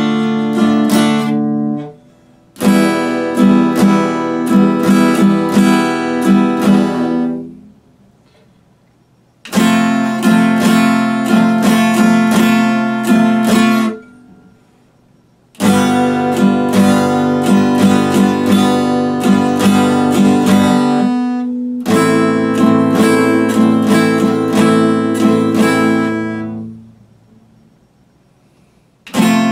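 Epiphone acoustic guitar strummed in phrases of chords a few seconds long, each stopped short and followed by a pause of one to two seconds.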